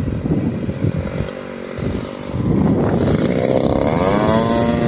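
The 50cc gas engine of an RC model aircraft running, with low rumbling noise in the first half; about three and a half seconds in its pitch rises, then holds steady at higher revs.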